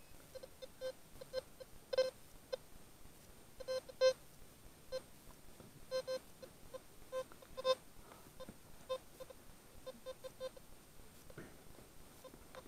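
Metal detector beeping as its search coil is swept over the ground: short beeps, all at the same mid pitch, coming irregularly, often several a second in small clusters, each beep a response to metal in the ground.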